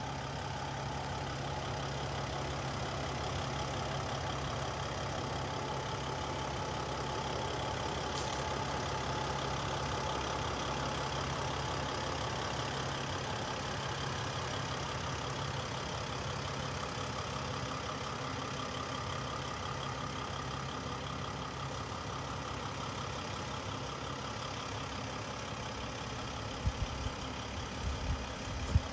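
Mercedes-Benz Sprinter 519 CDI minibus's diesel engine idling steadily, with a few short knocks near the end.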